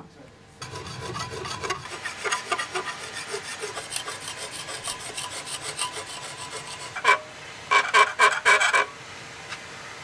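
Hand file rasping across the steel of a kanna (Japanese plane) blade clamped in a vise, in quick, rapid strokes, with a few louder strokes between about seven and nine seconds in. This is cosmetic finishing of the blade's surface.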